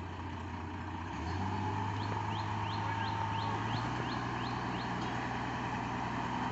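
Diesel excavator engine running, stepping up in pitch and loudness about a second in as it revs. A quick run of about ten short, high, rising chirps sounds over it in the middle.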